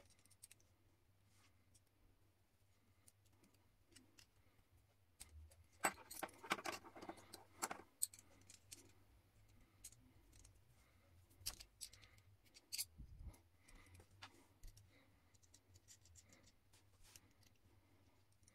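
Small steel hardware (a bolt, nuts, washers and a flat metal bracket) clinking and clicking faintly as it is handled and fitted together, with a quick run of clinks about six to eight seconds in and a few single clicks later.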